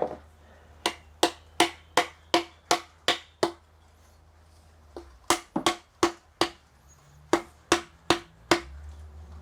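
A mallet knocking tight-fitting joints into aluminium shelving tubing. There are three quick runs of sharp knocks, about three a second, each with a short ring.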